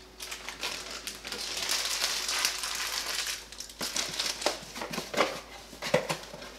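Packaging crinkling as it is handled for about three seconds, then a few light clicks and knocks as things are moved on the counter.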